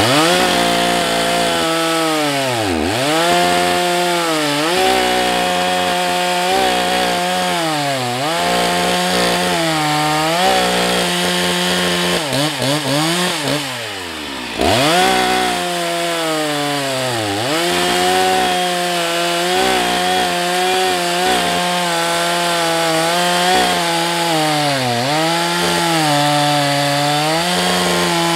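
Husqvarna 181 SE two-stroke chainsaw cutting into a log at full throttle. Its engine pitch sags under load every couple of seconds and picks back up. About halfway through, the revs fall away briefly and then climb again.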